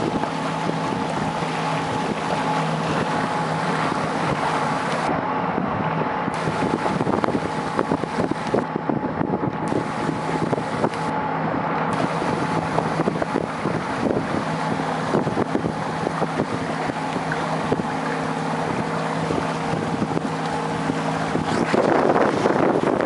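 Boat motor running steadily at cruising speed, with wind rushing over the microphone. Near the end the engine tone fades under louder rushing wind and water noise.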